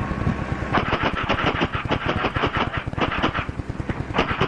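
Fire alarm office telegraph equipment clattering: a fast run of sharp, even clicks, about eight a second, over a steady low ticking. The run starts about a second in, breaks off briefly near the end, then resumes.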